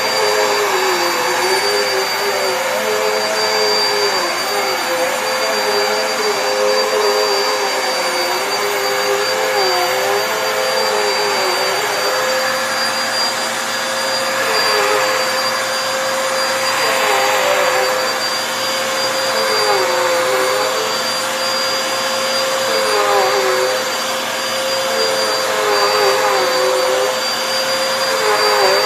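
Vacuum cleaner running steadily: a constant whine over a broad rush of air, with a lower motor tone that dips and recovers in pitch every couple of seconds.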